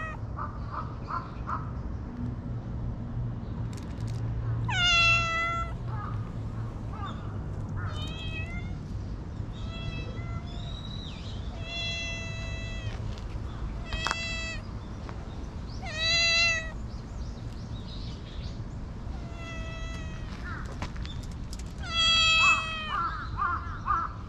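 Brown tabby-and-white cat meowing again and again at a person: about ten short, high meows, spaced one to a few seconds apart, some louder than others.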